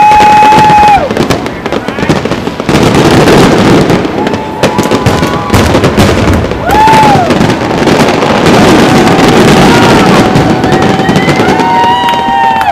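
Fireworks display at close range: aerial shells bursting in a dense, continuous barrage of bangs and crackle, very loud. Over it run several long, steady high tones that bend down at their ends, near the start, twice in the middle and through the last few seconds.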